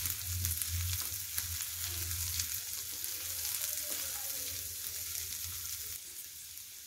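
Diced potatoes, green peas and onion sizzling in oil in a frying pan while a silicone spatula stirs them, with short scrapes against the pan. The sizzle eases a little near the end.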